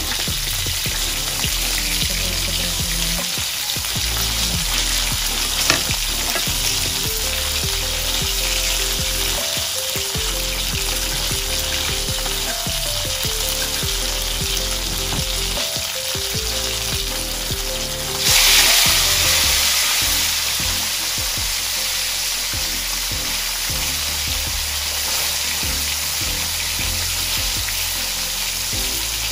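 Tilapia frying in hot oil in a wok, sizzling steadily, with one sharp click about six seconds in. About eighteen seconds in, the sizzle suddenly jumps louder as a fresh fish goes into the oil, then slowly settles back.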